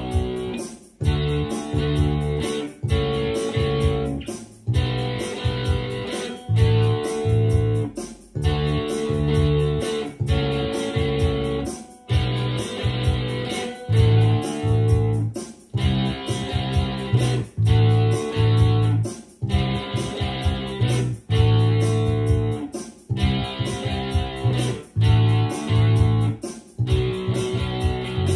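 Rock song: a solid-body SG-style electric guitar plays a chordal riff in phrases just under two seconds long, each ending in a brief stop, with bass and drums.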